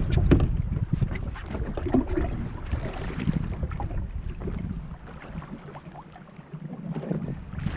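Wind buffeting the microphone on a small boat at sea, with scattered short knocks and clicks over it; the rumble eases about five seconds in and picks up again near the end.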